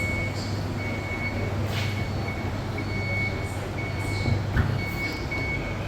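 Electrolux TD6 tumble dryer's end-of-cycle signal: a short high beep repeating about every half second, over a steady low machine hum, with a couple of soft knocks.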